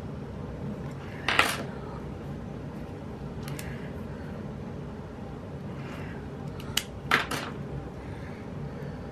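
Planner supplies being handled on a desk: a few sharp clicks and short scraping sounds, the loudest about a second and a half in and a cluster of clicks near the end, over a steady low hum.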